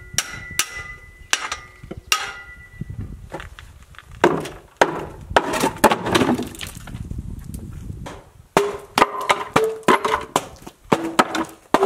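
Hammer blows knocking wooden formwork boards loose from a window opening, with the boards clattering down onto the concrete sill. A quick run of strikes opens, several of them ringing briefly; a denser clatter of falling wood follows in the middle, and more sharp knocks come near the end.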